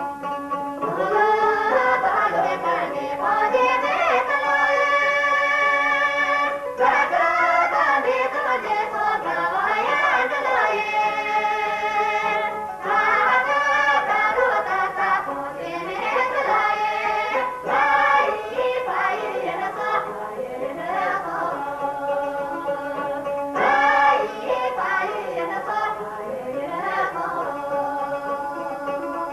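Tibetan folk song: voices singing in long ornamented phrases with held notes, over plucked lute accompaniment.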